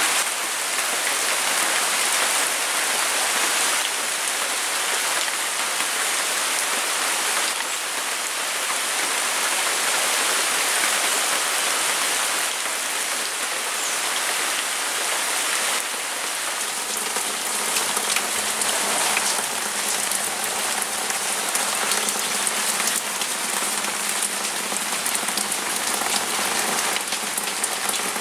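Steady rain falling, with rainwater running out of a collection pipe and splashing into a storage tank.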